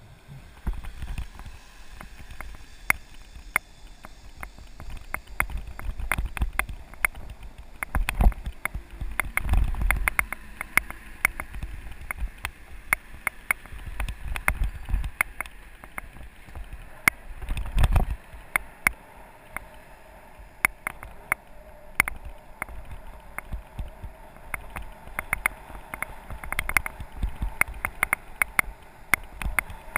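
Mountain bike rolling fast over asphalt and paving stones, heard through an action camera riding along: a dense run of irregular clicks and rattles from the bike over the bumps, with low wind rumble on the microphone that swells around eight to ten seconds in and again near eighteen seconds.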